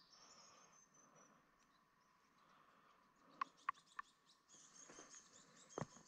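Faint rainforest ambience: a steady insect drone with a thin high trill over it. There are three quick sharp ticks about halfway through and a soft thud near the end.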